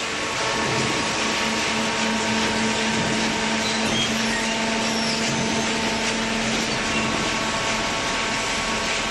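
A cardboard baler with its feed conveyor running: a steady mechanical whir and hum with a constant low drone, unbroken throughout.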